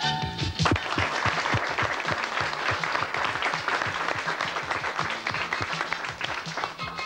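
Studio audience applauding. The applause breaks in about a second in, over light music, and dies down near the end as the music comes back up.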